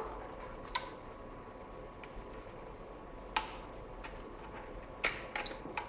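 A few sharp metallic clicks as exhaust springs are stretched with side cutters and hooked onto the titanium header pipes: one click about a second in, another midway, and a quick cluster near the end.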